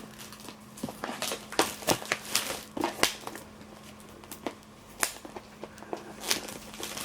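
Diamond painting kit packaging being opened and handled: irregular crinkling and rustling with scattered clicks and taps.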